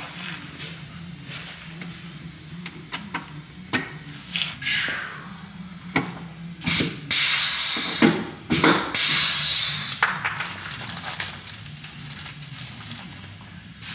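Rivet gun setting pop rivets into a plastic rocker panel cover, with sharp clicks and snaps. There are two loud hissing bursts, about seven and about nine seconds in.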